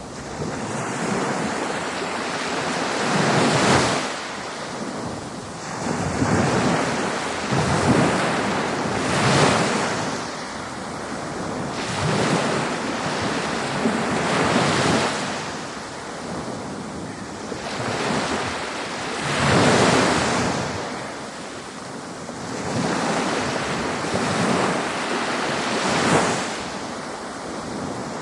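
Ocean waves breaking on the shore, a continuous wash of surf that swells and falls back every few seconds as each wave comes in.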